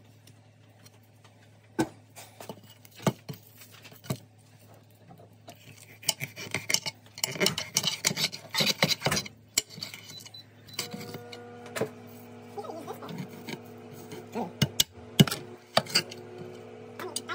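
A knife scraping the scales off a whole fish, a rough rasping run of strokes, with sharp knocks of the blade and the fish against the counter. A steady hum comes on about two-thirds of the way through.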